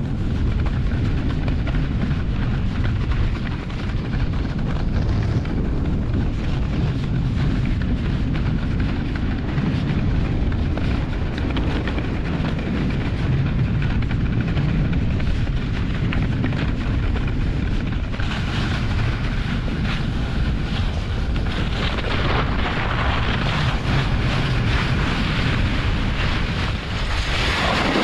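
German Luge 115 sled running downhill, its runners rumbling and scraping over packed snow, with wind rushing over the microphone. A brighter scraping hiss comes in about two-thirds of the way through and grows stronger near the end.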